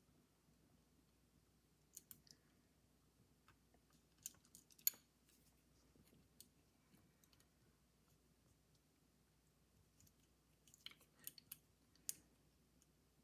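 Small, sharp metal clicks and taps of tone arm parts and a screwdriver being handled while fitting a gramophone tone arm. They come in three brief groups, the loudest about five seconds in.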